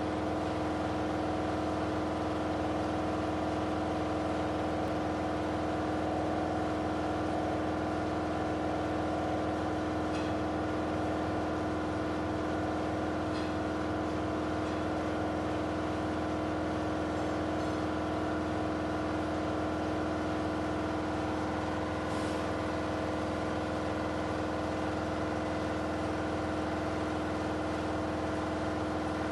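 A vehicle engine running at a steady speed, an even humming drone that doesn't change. Three faint clicks can be heard, about a third of the way in, near halfway and about three quarters through.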